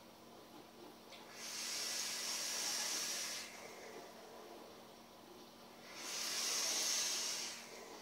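Vaping on a home-made box mod: two long airy hisses of about two seconds each, one starting about a second and a half in and the other near the end.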